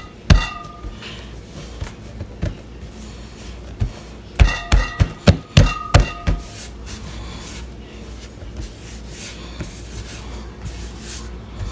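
Knocks and taps on a hard work surface as bread dough is shaped by hand into bolillo rolls: one knock just after the start, then a quick run of about six knocks about four to six seconds in, with quieter rubbing and scuffing between.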